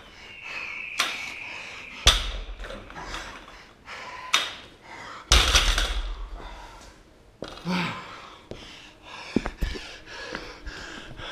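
Loaded barbell with rubber bumper plates dropped onto a rubber gym floor, landing with heavy thuds about two seconds in and again, loudest, about five seconds in, during a set of 60 kg cleans. A man breathes hard between the drops, and a few lighter knocks come near the end.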